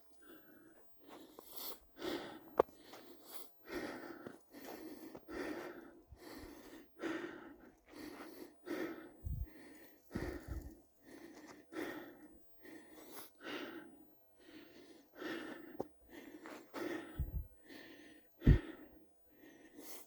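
Footsteps crunching in snow at a steady walking pace, about one step every 0.8 seconds.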